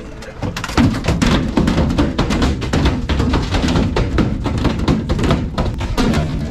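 Background music with a driving drum beat, which comes in loudly under a second in.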